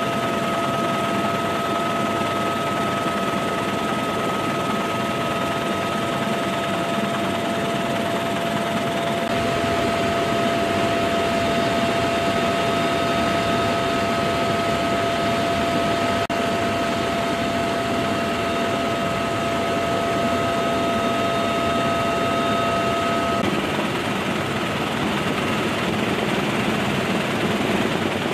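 Bell AH-1Z Viper attack helicopter in flight: steady rotor and turbine noise with a high, steady whine that drops out about 23 seconds in.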